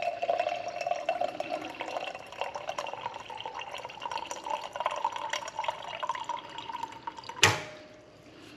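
Filtered water trickling from the spigot of a stainless steel countertop water filter into a wine glass, its pitch rising slowly as the glass fills. Near the end the stream stops with one sharp click as the spigot shuts.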